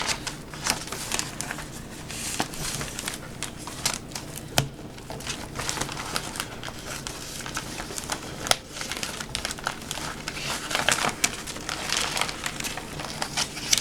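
Crinkling and rustling of a self-adhesive puzzle sheet's backing paper and plastic film as it is peeled and handled, with scattered sharp crackles.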